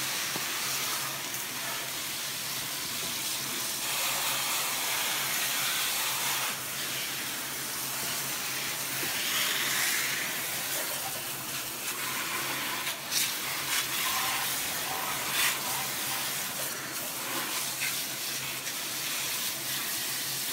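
Low-pressure water spray hissing steadily as it rinses an engine bay, the water pattering on the engine cover and parts, with a few small clicks and knocks.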